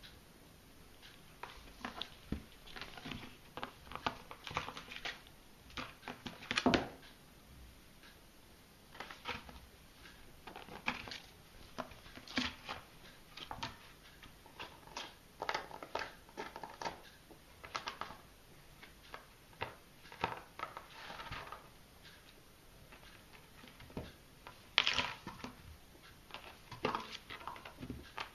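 A pet rabbit handling a plastic dustpan on a carpet: irregular taps, scrapes and rattles of the plastic as it steps in, noses and shoves it, the loudest knock about seven seconds in and another near the end.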